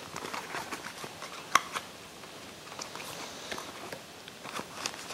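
Small clicks and taps of kitchen items being handled on a countertop, among them a cardboard box of cornstarch, with one sharper click about a second and a half in.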